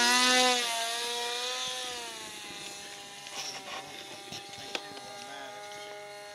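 An RC airplane's electric motor and propeller whine at full throttle right after a hand launch. The pitch holds nearly steady while the sound fades as the plane flies away.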